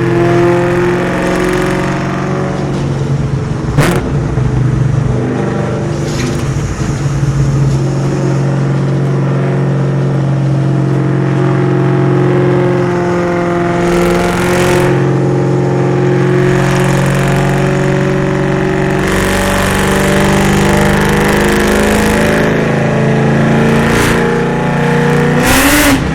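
Whipple-supercharged, cammed 4.6-litre DOHC V8 of a Terminator Mustang SVT Cobra with Kooks headers and Borla ATAK exhaust, running loud while driving, heard from inside the car. The engine note holds steady and shifts in pitch, with two sharp cracks, one about four seconds in and one near the end, and the revs rise just before the end.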